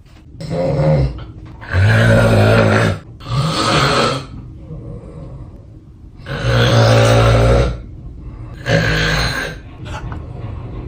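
A person snoring very loudly: five long, rasping snores, each about one to one and a half seconds, with a longer pause about halfway through.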